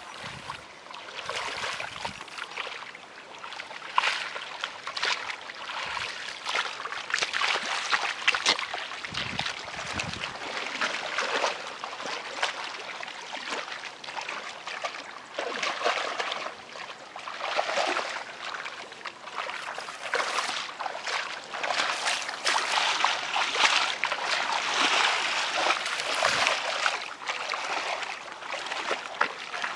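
Shallow muddy water splashing and sloshing under wading feet and groping hands, in many uneven splashes one after another.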